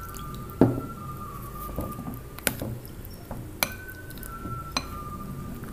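Water poured from a glass into tapioca starch in a ceramic bowl, then stirred with a plastic rice paddle to dissolve it. The glass and paddle tap against the bowl in a few sharp clinks, the loudest about half a second in.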